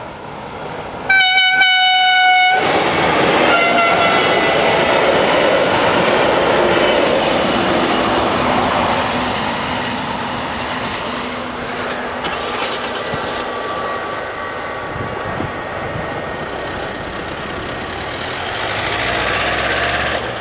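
Siemens Desiro diesel multiple unit sounding its horn, one long blast about a second in and a short second note soon after, then the rumble and rail noise of the train passing over the crossing, slowly fading.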